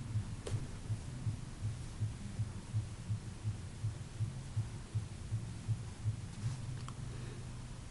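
Low rhythmic throbbing hum, about three pulses a second, with a faint click about half a second in and another near the end.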